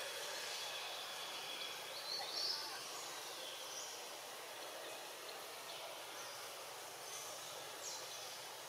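Outdoor woodland ambience: a steady high hiss with a few short, high chirps, a cluster about two seconds in and a couple more near the end.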